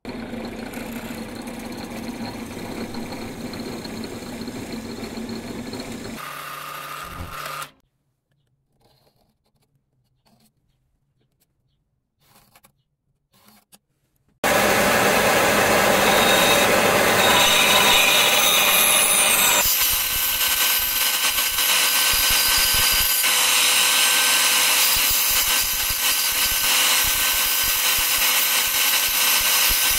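Bench-top power saw running loudly and cutting a wooden knife-handle scale, after a steady hum at the start and a quiet stretch with a few faint clicks.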